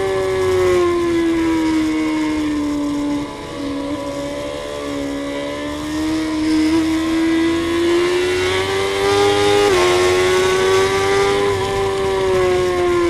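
Suzuki GSX-R inline-four engine heard from on board at track speed. Its pitch falls for the first three seconds, the level drops briefly as the throttle closes, then the pitch climbs steadily under acceleration. A sudden drop in pitch about ten seconds in is a gear change, and the pitch falls again near the end.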